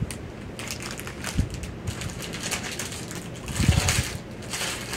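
Rustling and crinkling of plastic packaging as items are handled and put into a box, with a couple of soft bumps, one about a second and a half in and one near four seconds.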